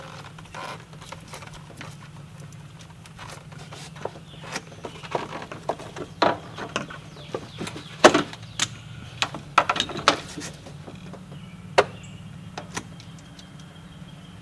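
Irregular metallic clicks and knocks as a Honda Civic's distributor is worked back into its seat and turned to line up with its mark, busiest in the middle with a few sharper knocks, over a steady low hum.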